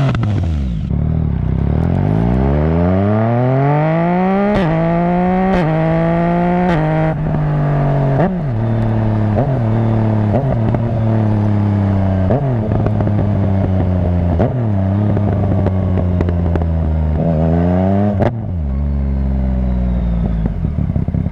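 Yamaha MT-09's three-cylinder engine through a Roadsitalia Double Fire titanium full exhaust with the dB killer removed, under hard acceleration. The note climbs and drops sharply with four quick upshifts in the first eight seconds, then runs at a steadier lower pitch with several short throttle blips. It revs up once more near the end and drops off.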